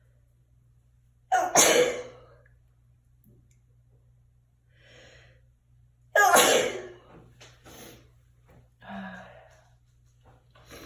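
A person sneezing twice, about five seconds apart, each sneeze a loud, sudden burst. There is quieter breathing between the sneezes, and short sniffs and breaths after the second one.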